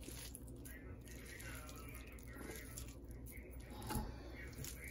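Hands squeezing and kneading a raw ground-chicken kabab mixture in a plastic bowl: faint wet squishing, with one louder knock about four seconds in.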